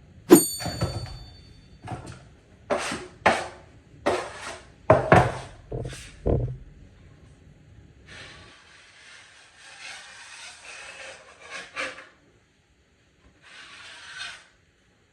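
Drywall tools at work: a sharp metallic strike that rings briefly, then a run of about nine knocks, followed by two stretches of scraping.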